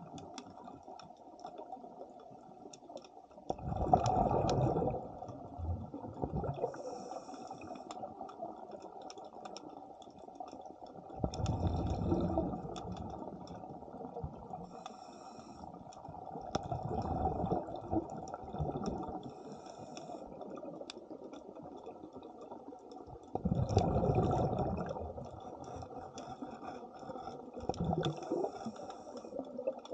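Underwater sound of a diver's breathing regulator: a bubbling rush of exhaled air comes every five or six seconds over a steady underwater hiss, with faint crackling clicks throughout.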